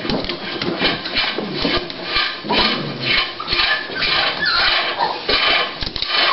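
A small dog (a Toy Pinscher bitch in early labour) making rhythmic noisy sounds about twice a second, with a few brief faint whines.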